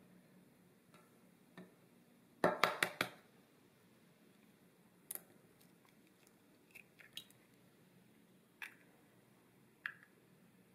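An egg being cracked by hand over a glass bowl. A quick run of sharp knocks comes about two and a half seconds in as the shell is tapped and breaks. It is followed by scattered light clicks and cracks as the shell is pulled apart and the egg drops into the bowl.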